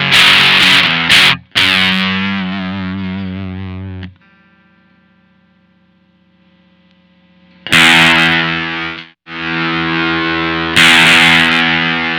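Electric guitar (Squier Telecaster) through a Maestro Fuzz Tone FZ-M pedal set for low-gain fuzz, playing fuzzy strummed chords that ring out and decay. The guitar drops to near quiet for about three and a half seconds in the middle, then loud fuzz chords come back.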